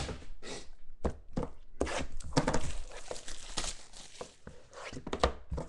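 Handling and unwrapping of a shrink-wrapped trading card box: a few knocks and clicks as the box is picked up and set down, then about two seconds of crinkling, tearing plastic wrap in the middle.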